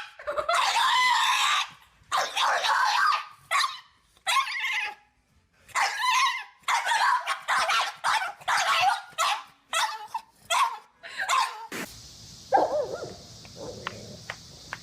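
A dog giving a string of loud, shrill screaming cries, about ten in all, each up to a second long. About twelve seconds in they stop abruptly, leaving a quieter hiss.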